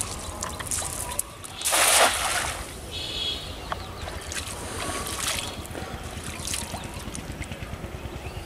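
A cast net hitting the river surface about two seconds in with a brief splash, followed by softer splashing as it sinks and is drawn in.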